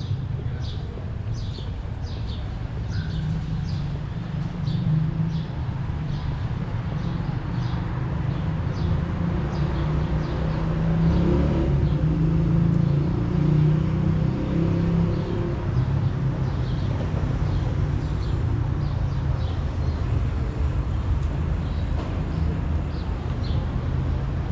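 Street ambience: a steady low traffic rumble that swells as a vehicle passes about ten to fifteen seconds in. Small birds chirp over it, quickly and repeatedly at first, then more sparsely.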